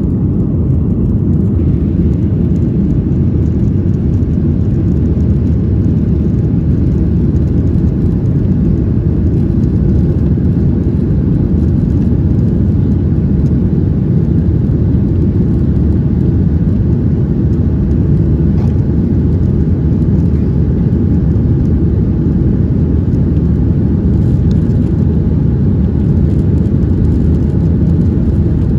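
Steady low rumble of a jet airliner's engines and rushing air, heard inside the passenger cabin during the climb after takeoff.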